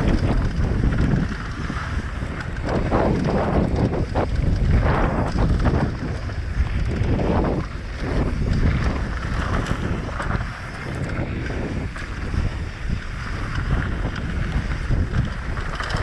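Heavy wind buffeting the microphone, a rushing rumble that swells and eases every second or two, as from a fast ride down a mountain bike trail.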